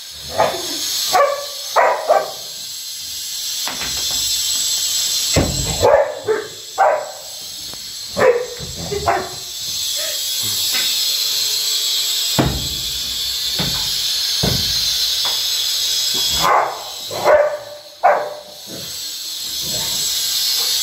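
Rottweiler barking in bouts of short, sharp barks during play, with a quieter stretch in the middle.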